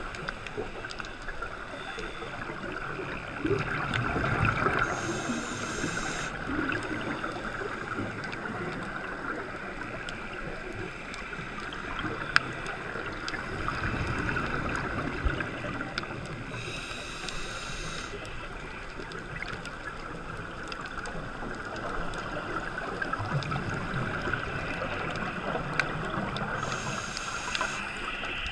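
A scuba diver breathing through a regulator underwater: three short hisses of inhalation about eleven seconds apart, with bubbling exhalations in between.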